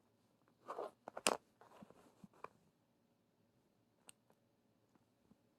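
Handling noise from a smartphone being picked up and held: a brief rustle, a sharp click about a second in, more light rustling and small clicks, then a single faint click near the end.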